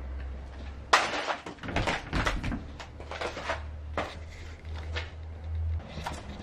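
A door being opened: a sharp knock about a second in, then a run of uneven knocks and rattles.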